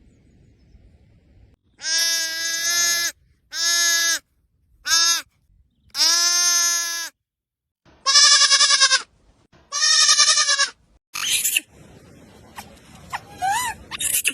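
A young goat kid bleating loudly and repeatedly, calling for its mother. There are about seven calls: the first four are held at a steady pitch, and the later ones quaver. Near the end a run of short, high squeaks rises and falls in pitch.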